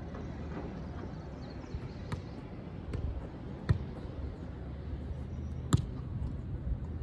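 Soccer ball being punted and trapped with the inside of the foot: three sharp thuds of the ball on boot and artificial turf, about a second and a half to two seconds apart, over a steady low hum.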